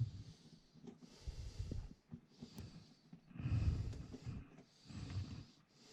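A man breathing heavily, close to the microphone, about five breaths in a row while he strains to reach into a tight spot. There are a couple of light handling clicks.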